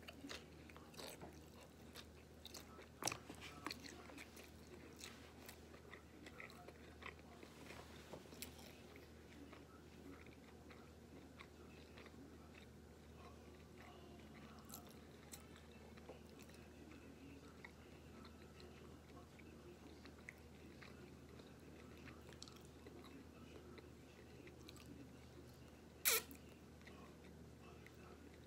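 Faint chewing and mouth sounds of a person eating, with small clicks over the first several seconds. One sharp click comes near the end.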